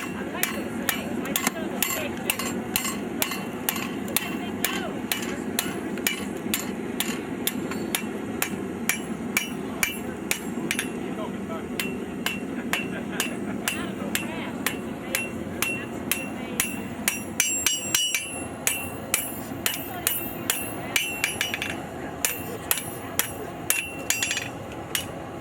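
Blacksmith's hammer striking a red-hot horseshoe file on an anvil, about two blows a second with a brief pause partway through, as the rasp is forged into the body of a snake. A steady low rush runs underneath, the gas forge's burners.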